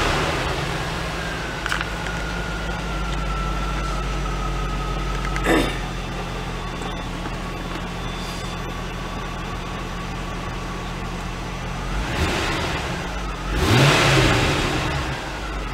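1995 Corvette's LT1 V8 idling just after being started, with a faint high whine that slowly falls in pitch over the first several seconds. Near the end the engine speed rises briefly.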